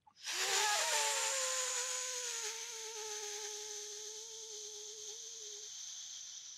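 A long, hissing in-breath drawn through pursed lips as if through a straw, with a faint whistling tone that sinks slightly and fades near the end. It is the resistance inhalation of Shitali breathing, done with pursed lips instead of a rolled tongue.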